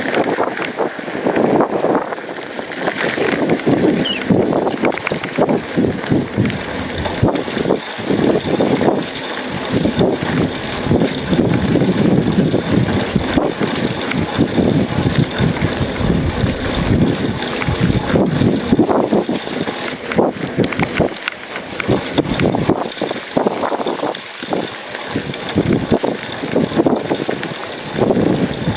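Wind buffeting the microphone while a mountain bike rolls over a dirt and gravel track, with tyre noise and frequent short rattles as it goes over bumps.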